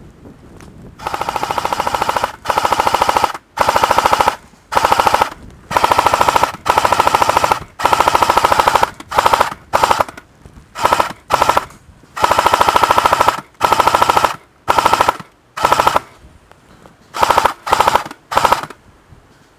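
A&K M249 Para airsoft electric gun firing on full auto in a long string of bursts, about fifteen of them, from short to about a second and a half long. Each burst is a rapid, even rattle with a steady whine under it.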